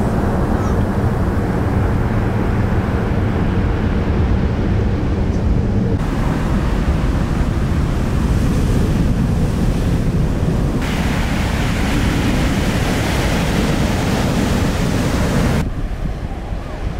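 Sea surf: waves breaking and white water rushing, with wind buffeting the microphone. The steady noise changes character abruptly a few times, turning brighter or duller.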